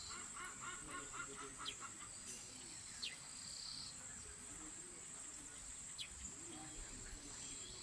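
A faint, steady, high-pitched insect drone with wild birds calling over it. A rapid run of chattering notes comes in the first two seconds, and a few short falling chirps follow later.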